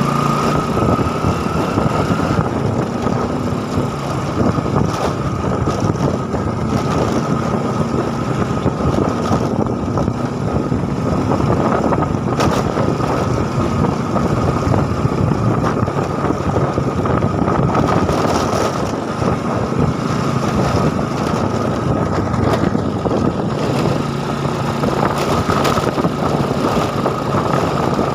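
An engine running steadily, with a constant high tone above it.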